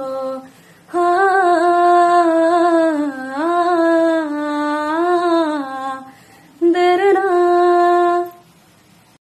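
A woman singing unaccompanied, holding long, wavering notes with no clear words: one long phrase starting about a second in, then a short phrase near the end that dies away.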